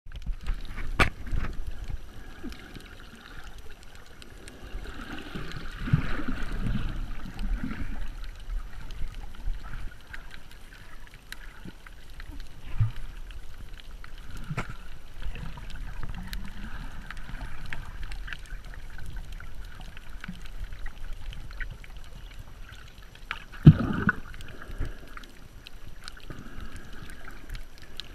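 Muffled underwater noise picked up through a GoPro's waterproof housing: a low rumble of moving water with a hissy wash, broken by scattered short clicks and one sharp knock about three-quarters of the way through.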